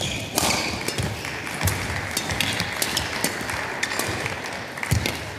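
Badminton rally: sharp racket strikes on the shuttlecock about a second or so apart, with the thud and tap of players' footsteps on the court floor.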